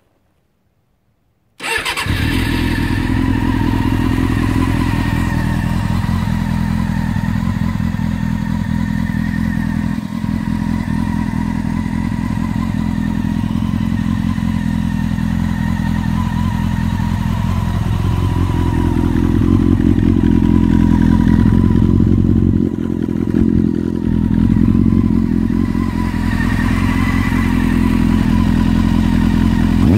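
Honda CBR600F's inline-four engine starts about a second and a half in, then idles steadily through a LeoVince aftermarket exhaust with its dB killer baffle removed. It runs a little louder for a few seconds about twenty seconds in.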